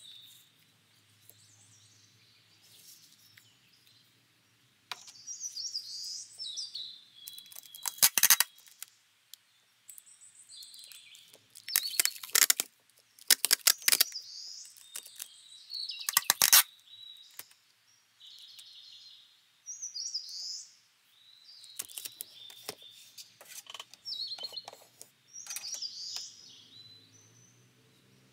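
Clear packing tape pulled off a handheld tape dispenser in several loud strips and torn off on its cutter, over soft high chirping in the background.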